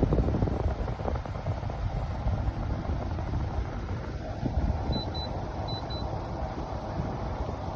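Portable air conditioner running with a steady fan noise and a low rumble. About four seconds in, a steadier hum comes in over it.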